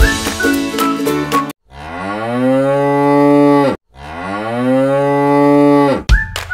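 A cow mooing twice: two long moos of about two seconds each, back to back, each rising at the start, holding and falling away at the end. Music plays briefly before the moos and again just after.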